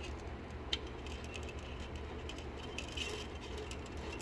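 Light clicks and rubbing of 3D-printer filament being pushed by hand through a PTFE tube into a filament sensor block, with one sharper click about a second in, over a steady low hum.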